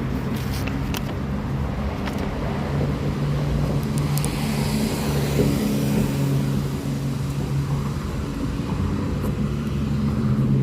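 Car driving noise heard from inside the cabin: a steady low engine and road hum. A few light clicks come in the first couple of seconds, and a swell of hiss comes about four seconds in.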